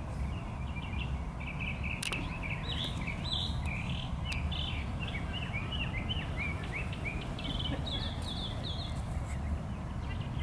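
Birds chirping in a long run of quick, short high notes, over a steady low background rumble, with a single sharp click about two seconds in.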